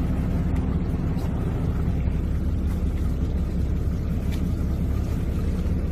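Fishing boat's engine running, a steady low drone with an even hiss over it.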